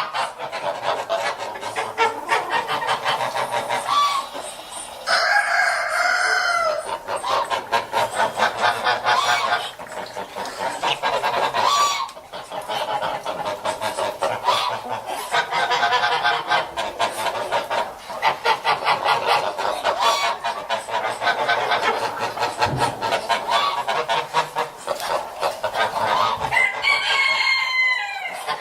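A flock of geese cackling and gabbling in a dense, rapid chatter, with a few louder, clearer honks about five seconds in and again near the end.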